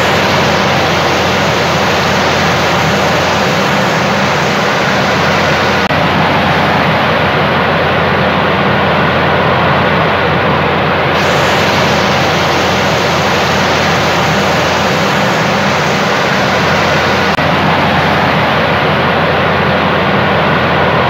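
Heavy rain pouring onto a flooded, puddled pavement: a loud, steady rushing hiss of drops splashing into standing water.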